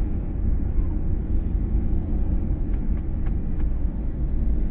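Wind buffeting the microphone: a steady low rumble that rises and falls, with four faint clicks a little past the middle.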